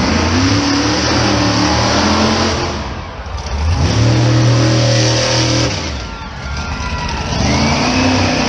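Monster truck engine revving hard as the truck pulls away, in three pushes of throttle: a rise at the start, a long full-throttle stretch in the middle, and another rise near the end, with brief easings between them.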